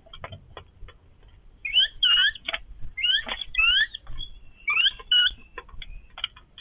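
Yellow-billed babblers calling: clusters of short, squeaky notes that rise quickly in pitch, in about three bursts with pauses between, mixed with short clicks.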